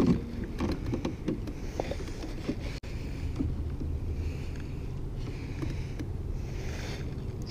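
Steady low rumble of wind on the microphone over an open pond, with a few soft knocks and clicks in the first second or so.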